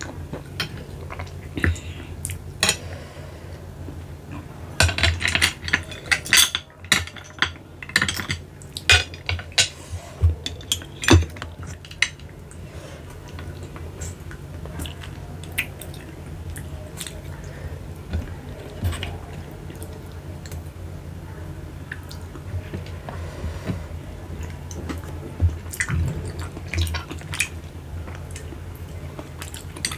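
Close-up eating of babylon sea snails in sauce: shells and cutlery clicking and clinking against a glass dish, mixed with wet sucking and slurping. The clicks come thick and fast for a stretch in the first third, then more sparsely.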